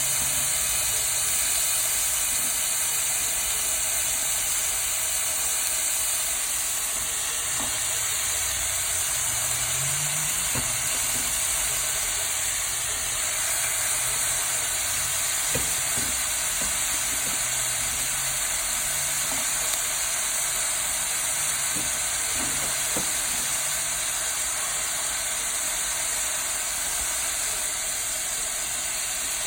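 Vegetables sizzling and steaming in a hot pan: a steady hiss, with a few faint clicks about halfway through.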